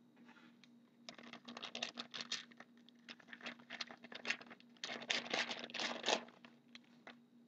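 Foil wrapper of a 2011-12 Artifacts hockey card pack being torn open and crinkled by hand, in two bursts of crackling: one about a second in and a longer one around five seconds in.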